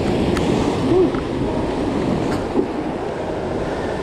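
Ocean surf breaking and washing over coastal rocks: a steady, loud rushing.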